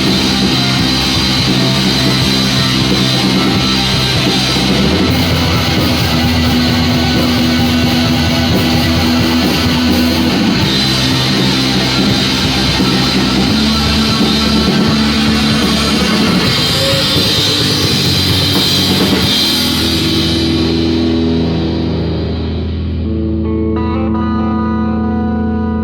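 Rock music with guitars and a drum kit playing full-band; about twenty seconds in the drums and cymbals drop out, leaving sustained guitar notes ringing.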